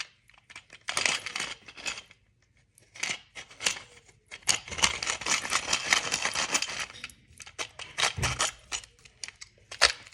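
Small hand-worked plastic gadget clicking and rasping in several bursts, with a short pause after the first burst.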